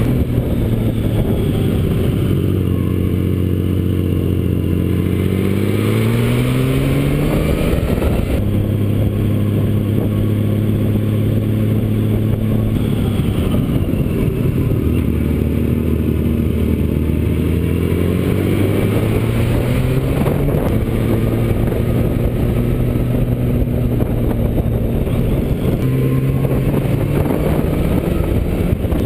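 Honda GL1500 F6C Valkyrie's flat-six engine running under way. Its pitch climbs several times as the throttle opens and falls back as it slows.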